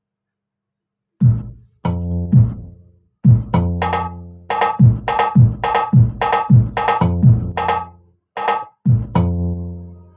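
Roland SPD-20 Pro electronic percussion pad being played, its pads triggering sampled drum hits and deep pitched bass-like tones. It starts about a second in and settles into a steady rhythm of about two strikes a second, with brief breaks near the end.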